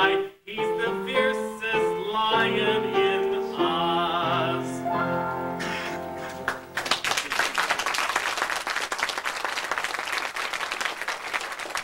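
The end of a song sung to piano accompaniment, with a wavering, vibrato-like held note near the finish. The music stops about six seconds in, and an audience applauds.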